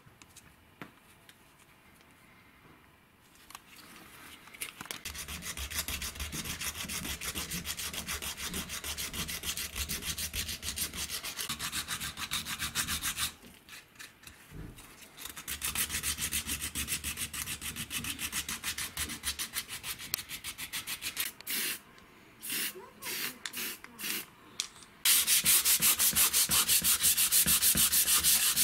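Hand sanding in back-and-forth strokes. First a small dark cylindrical drill part is rubbed with a green abrasive pad in steady rhythmic strokes, with a pause of about two seconds midway and a few short, broken strokes. Then, near the end, louder and faster sandpaper strokes scour the orange drill housing.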